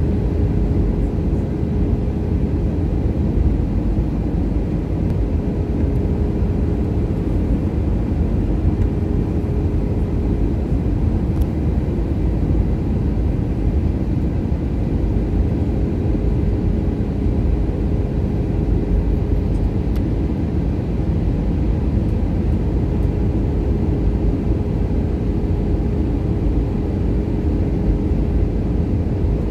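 Airbus A320 cabin noise in flight on descent: a steady low rumble of the engines and airflow, with a constant hum.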